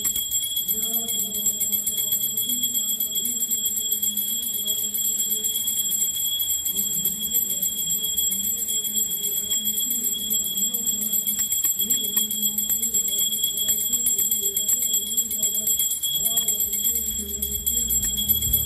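A puja bell rung continuously during the aarti, its high ring steady throughout, over a slow devotional melody.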